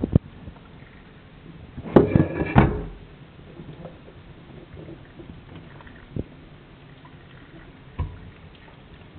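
A stainless steel pot knocking and clattering as it is handled, with a loud metallic clatter about two seconds in that rings briefly, then single dull knocks later.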